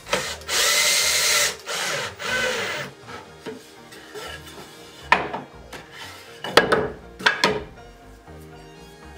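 Cordless drill running into the wood of a pine stool frame in two bursts in the first three seconds, then a few sharp knocks of wood on wood.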